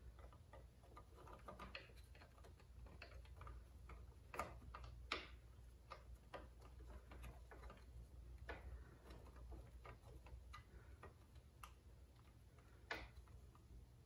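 Faint, irregular small metallic clicks and ticks of hands turning a threaded fitting and jam nut on an outboard's lower-unit linkage, a few a little louder than the rest, over a low room hum.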